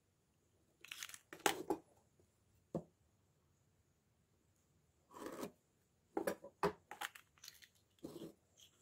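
Short scratching and scraping strokes of a pen drawing marking lines on a Douglas fir block, and a steel rule being set down and shifted on the wooden workbench. The strokes come in clusters about a second in, around five seconds, and from six to eight seconds, with a single sharp click near three seconds.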